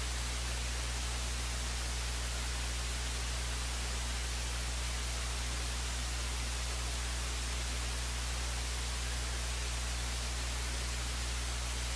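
Steady hiss with a constant low electrical hum and nothing else: an idle broadcast audio feed, its line noise and mains hum left open.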